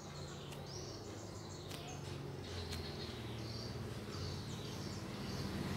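Faint handling of a soft, slow-rising foam squishy being squeezed and turned in the hands, with a few light clicks. Short high chirps and a low steady hum sit in the background.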